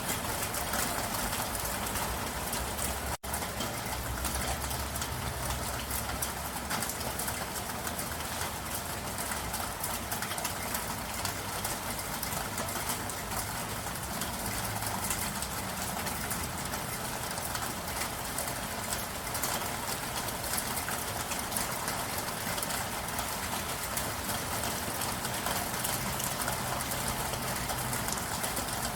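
Steady rain falling, a dense patter of drops with a brief cut in the sound about three seconds in.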